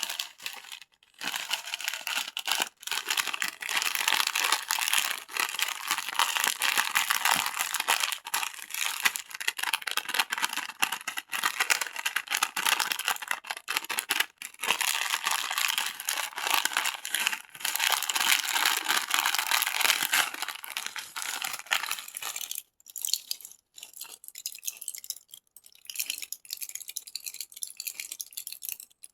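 Plastic candy wrappers crinkling as they are handled. From about 22 seconds in, the dense crinkling thins to scattered crackles and clicks.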